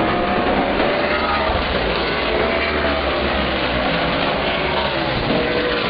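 A field of Outlaw Super Late Model stock cars' V8 engines racing around the oval, a loud, steady wall of engine noise whose notes rise and fall slightly as the cars pass.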